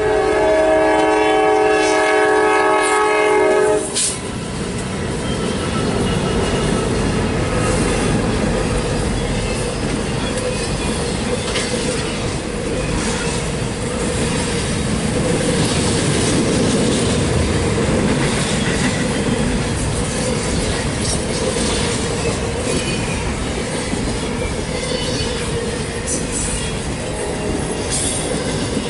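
Norfolk Southern intermodal train at a grade crossing: the lead GE C44-9W locomotive's horn sounds one loud, chord-like blast that cuts off about four seconds in. Then the locomotives and the double-stack container cars roll by with a steady rumble and wheel clatter on the rails, with brief high wheel squeals near the end.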